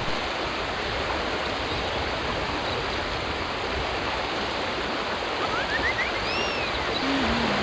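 Steady rush of water from a mountain river flowing past. About six seconds in, a short whistle rises and then arches back down.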